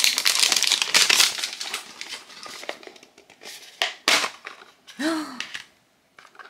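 Plastic wrapping crinkling and tearing as a Squish'ums blind-box package is opened, then scattered clicks and rustles as the red plastic box is pulled apart. The crinkling is densest in the first second or so.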